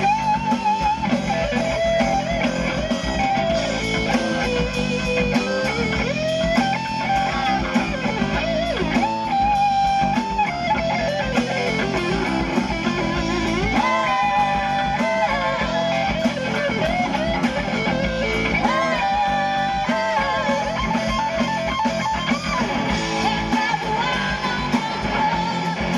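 Live rock band playing: electric guitar carrying a bending melodic line over drums, with cymbal strokes throughout.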